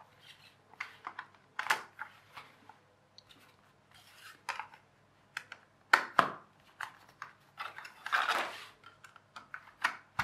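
Interlocking jigsaw-style toy train track pieces being slid across a tabletop and pressed together: scattered clicks, taps and short scrapes, with a sharp pair of clicks about six seconds in and a longer rub near eight seconds.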